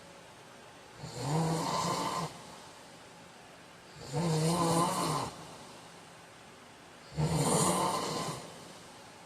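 A man snoring in his sleep: three snores about three seconds apart, each lasting a little over a second.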